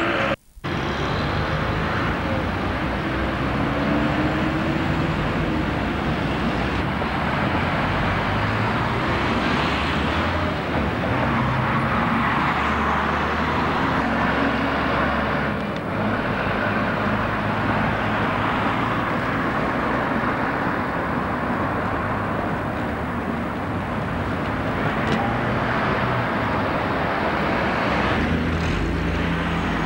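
Double-decker bus diesel engines running and pulling past amid street traffic, picked up by a camcorder's built-in microphone. The sound cuts out briefly about half a second in.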